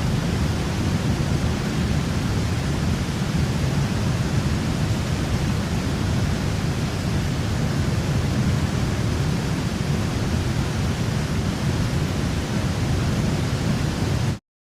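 Steady, loud rush of a waterfall, a dense even roar heaviest in the low end, which cuts off abruptly near the end.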